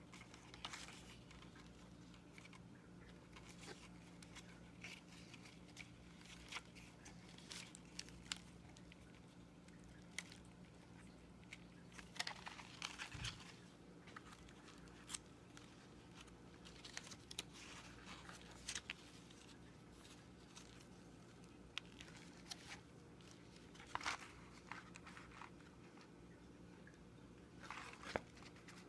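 Paper or card being handled: scattered soft crinkles, rustles and light taps, irregular and faint, with a few sharper clicks.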